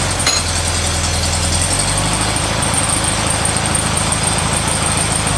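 Air-cooled Volkswagen Beetle flat-four engine idling steadily.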